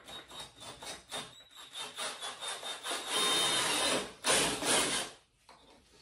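Cordless drill boring a mounting hole through the side of the motorcycle's rear bodywork, stuttering in short quick bursts at first, then running steadily in two longer pushes before stopping about a second before the end.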